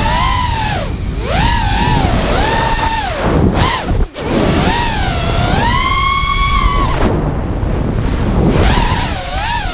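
FPV quadcopter's brushless motors and propellers whining, the pitch rising and falling again and again as the throttle changes, with a sudden brief cut just after 4 s, over rushing wind noise.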